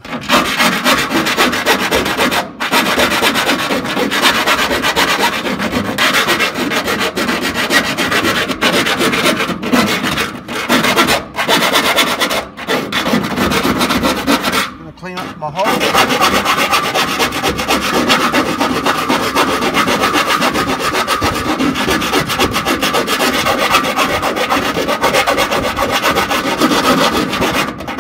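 Rasping and rubbing of a tool cleaning up burrs around freshly drilled bolt holes in a tank wall. It is nearly continuous, with two short breaks, about two and a half seconds in and about fifteen seconds in.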